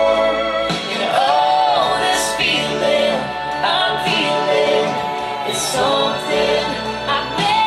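A recorded song playing: a singing voice holds long, wavering notes that glide between pitches, over a steady accompaniment.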